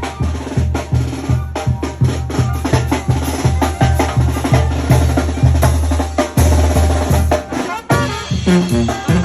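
Loud music with a steady beat: a drum kit over heavy bass.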